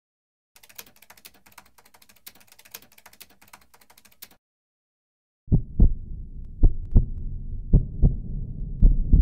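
Typing sound effect, a fast run of faint keyboard-like clicks for about four seconds as text is written out. After a short gap come deep booming thumps in pairs like a heartbeat, about one pair a second, over a low rumble: a cinematic intro sound effect.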